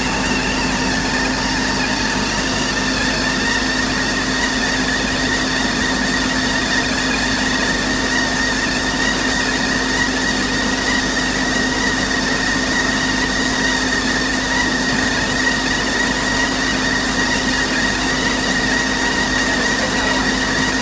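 Stationary baler-wrapper machine running steadily, a constant mechanical hum with a high, steady whine over it.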